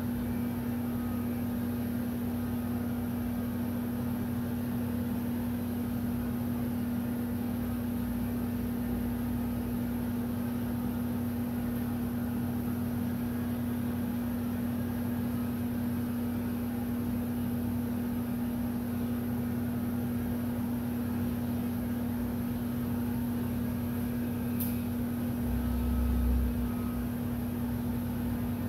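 Handheld electric heat gun running with a steady, unchanging hum while it heat-shrinks window tint film on glass. A brief low rumble shows up near the end.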